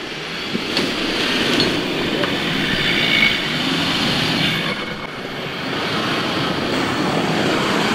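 Off-road 4x4 vehicle running under load: a steady mechanical rumble that builds over the first second or so, with a faint high squeal around the middle.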